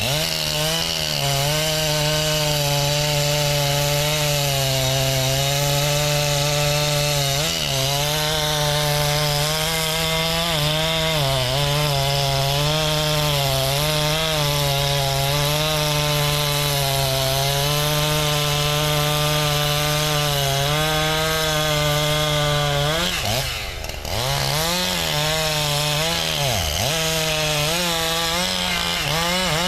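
Two-stroke chainsaw held at high revs as it cuts into the trunk of a standing tree, its pitch dipping now and then as the cut loads the engine. About 23 seconds in it eases off briefly and the pitch falls, then it revs back up and keeps cutting.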